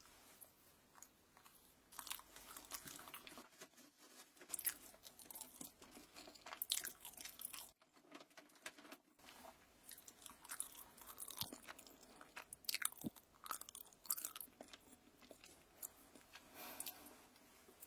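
Close-microphone chewing and crunching of crisp food: irregular crunches and mouth sounds, with a brief pause about eight seconds in.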